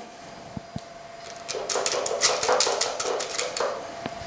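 Spatula scraping ganache out of a bowl and into a plastic piping bag standing in a glass: a run of irregular scrapes and rustles from about a second and a half in. A faint steady whine runs underneath.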